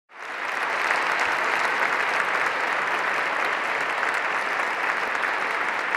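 Audience applause: dense, steady clapping that swells in over the first half second and holds level.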